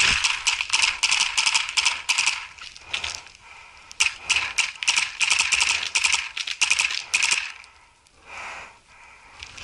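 Paintball marker firing rapid strings of shots, a fast rattle of pops: one string for about two seconds, then a longer one after a short pause.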